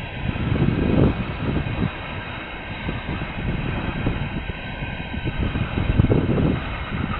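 Freight train of dump cars rolling past, a continuous low rumble that swells and fades irregularly, with wind buffeting the microphone.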